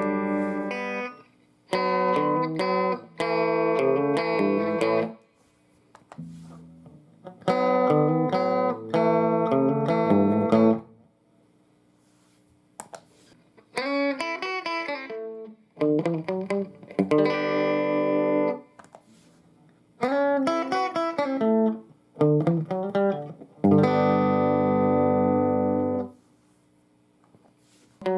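Electric guitar played through a Fender all-tube combo amplifier, in short phrases of chords and single notes, each a second or two long, with brief silent pauses between them.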